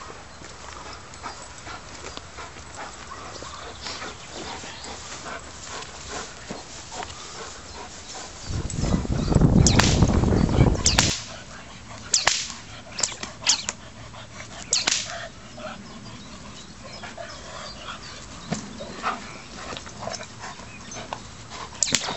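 Dutch Shepherd barking during bite-work training, with sharp cracks from the helper's whip at irregular intervals through the second half. A loud low rumble lasts about two and a half seconds around the middle.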